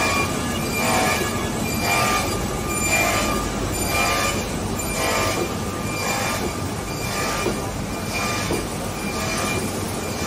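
Kolbus KM 410.B perfect binding line running: a steady mechanical din with a faint high tone, surging in a regular cycle about once a second.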